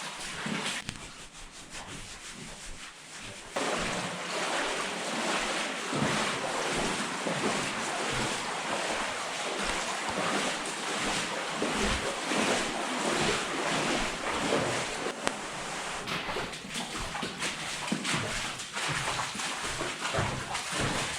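Steady splashing and sloshing of water in a mine tunnel, starting suddenly a few seconds in.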